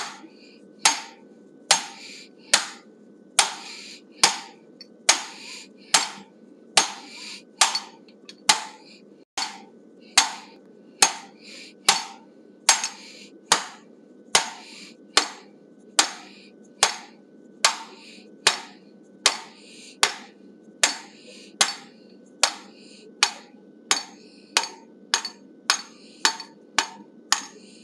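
Hand hammer striking the top die of a guillotine fuller, a steady run of sharp metal-on-metal blows at about three every two seconds, each with a short ring. The 3/4-inch fullers are being driven into a hot 1-inch square steel bar at an angle to rough out a triangular pre-shape.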